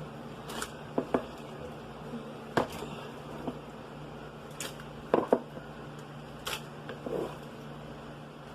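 Scattered clicks, taps and rustles of hands handling marinated spare ribs and a plastic zip-top bag, about nine separate sounds, over a steady low hum.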